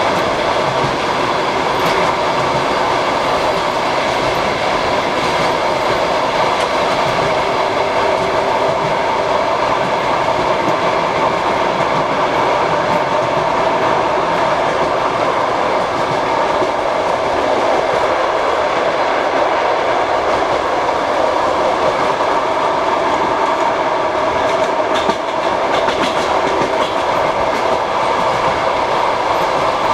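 Passenger train wheels running over the rails, heard through an open compartment window: a steady loud rolling rumble with the clatter of the wheels on the track.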